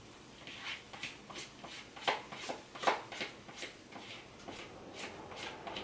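Spatula scraping and tapping in a frying pan of cooking pancakes: a quick series of short scrapes and clicks, about three a second. The two loudest come a little after two and a little before three seconds in.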